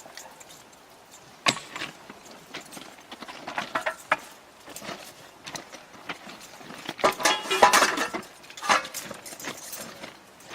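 Scattered clinks and knocks, busiest and loudest about seven to nine seconds in, with a brief ringing note.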